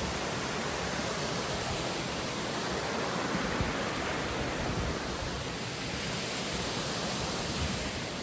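Steady rush of falling water from a creek or waterfall: an even hiss-like roar with no breaks.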